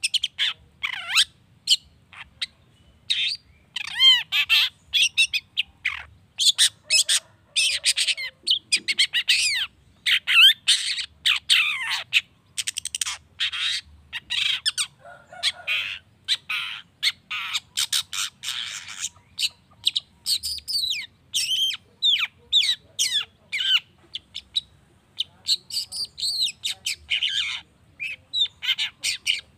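Long-tailed shrike (cendet) singing a fast, varied medley of short chirps, whistles, sweeping slurs and harsh squawky notes, in quick phrases with brief gaps.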